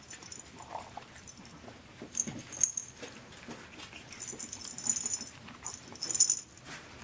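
A small bell jingling in several short bursts inside a plastic lattice ball toy as a Chihuahua puppy noses and pushes it around. The loudest jingles come about two and a half seconds in and again near the end.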